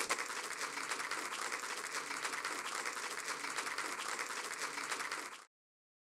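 Audience applauding, steady dense clapping that cuts off abruptly near the end.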